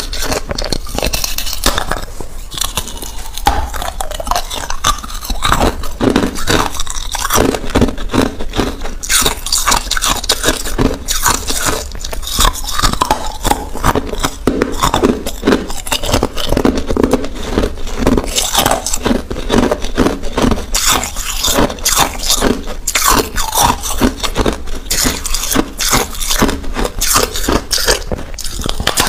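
A person biting into and chewing a slab of hard ice, an unbroken run of sharp crunches and cracks as the ice breaks between the teeth.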